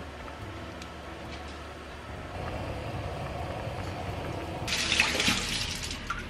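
Water running from a kitchen tap into the sink for about a second and a half near the end, starting and stopping abruptly. Before it, a pot of soup is simmering on a gas burner with a low, steady bubbling.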